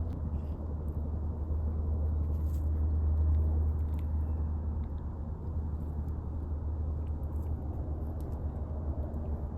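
A low, steady rumble that swells a little around three seconds in, with a few faint clicks.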